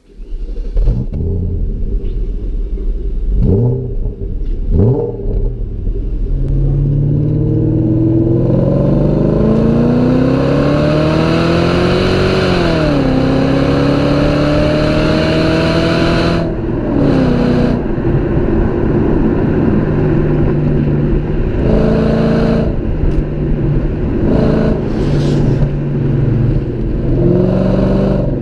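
BMW E39 V8 exhaust: a few short, sharp rises in revs, then the car accelerating hard, the engine note climbing twice with a sudden drop at a gear change, and afterwards running at a steadier pace with brief lifts in revs. Loud throughout.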